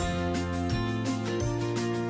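Background music: a melodic tune with a steady beat, its bass notes changing about every three quarters of a second.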